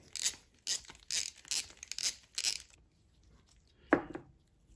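A small carburetor being handled on a workbench: a run of about six short, rasping scrapes and rustles, then a single sharp knock a little before four seconds in.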